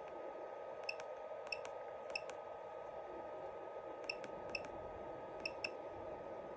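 Keypad of a portable ultrasound scanner beeping as its buttons are pressed: about ten short beeps with clicks, several in quick pairs, over a faint steady hum.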